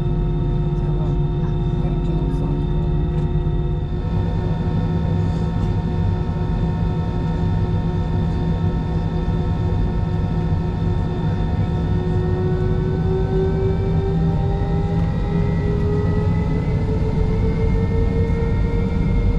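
Airliner jet engines heard from inside the cabin during taxi: a steady low rumble with several whining tones above it. The tones rise slowly in pitch over the last several seconds as the engines speed up.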